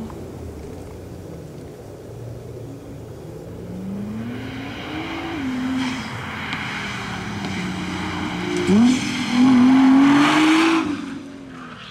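Nissan GT-R's twin-turbo V6 working hard through an autocross course, its revs climbing and dropping with the throttle. Near nine seconds the revs dip and jump back up, and the engine is loudest, with tyre hiss, as the car passes close by; then it fades away.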